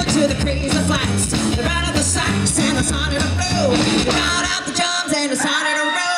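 Live rockabilly band: a woman singing over electric guitars and an upright double bass. The bass line drops out about three-quarters of the way through.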